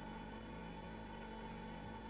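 Household refrigerator running: a steady, even hum with a higher-pitched whine held above it.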